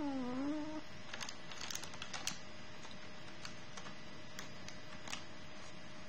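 A sleeping Chihuahua–Japanese Chin mix gives one short squeaky sleep noise that falls in pitch, then a run of faint clicks about a second in, with a few more scattered ticks after.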